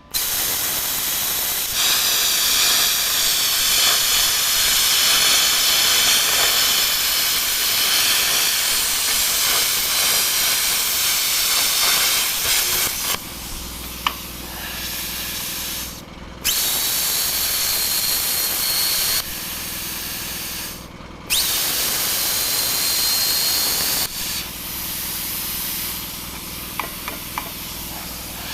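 Loud hiss of compressed air, steady for about 13 seconds, then cutting off and starting again sharply several times, with a low steady hum underneath in the later part.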